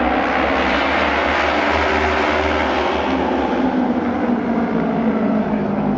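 Auto race motorcycles racing on the track, engines running hard together; the sound swells brighter as the pack passes from about half a second to about four seconds in.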